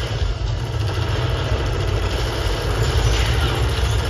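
Steady, heavy low engine rumble from the show's war soundtrack played over large loudspeakers, a battle sound effect of heavy armoured vehicles.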